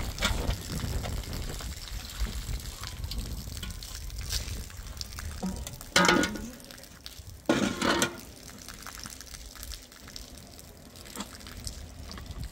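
Water running and splashing, with two louder gushes about a second and a half apart near the middle.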